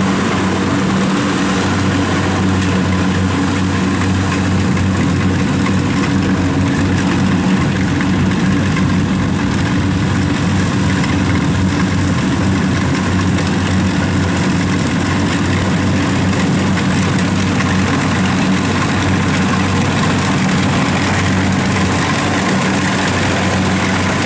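Kubota rice combine harvester's diesel engine running steadily at constant speed, a low, even hum.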